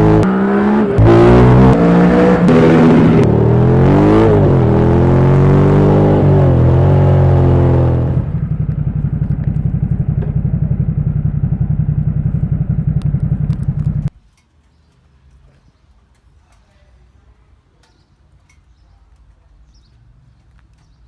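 Ducati Supersport S 937 cc L-twin engine running with several throttle blips, its pitch rising and falling, then settling into a lower steady run about 8 s in. The sound cuts off suddenly about 14 s in, leaving only faint background.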